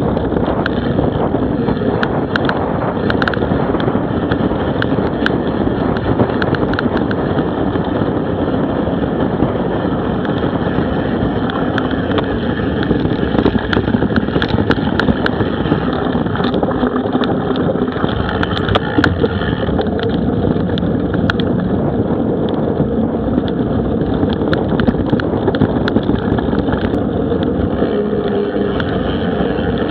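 Steady wind rush on an action camera's microphone and the noise of mountain-bike tyres rolling over a dirt track, with scattered clicks and knocks from the bike jolting over bumps.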